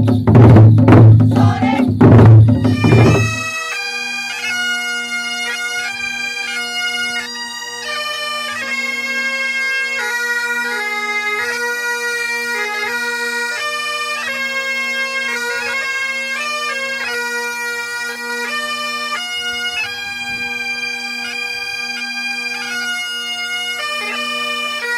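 Loud drum beats, about two a second, for the first three seconds, then a bagpipe playing a melody over its steady drones.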